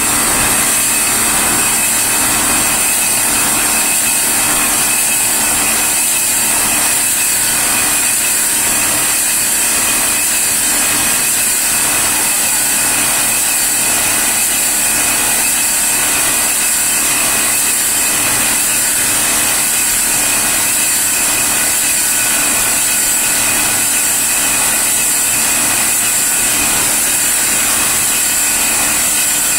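Polishing machine spinning an aluminum teapot body, running steadily with a loud high hiss and a steady hum, and a faint pulse about once a second.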